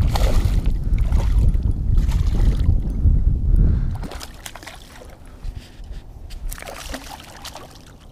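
A hooked smallmouth bass splashing and thrashing at the surface beside a boat as it is reached for by hand. A low rumble fills the first four seconds, then drops away, leaving quieter scattered splashes and sloshing.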